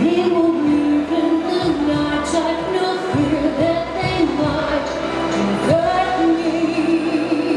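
A woman singing a slow song into a microphone over instrumental accompaniment, holding long notes.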